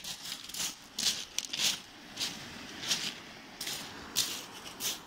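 Footsteps crunching on shingle beach pebbles at a walking pace, about two crunches a second.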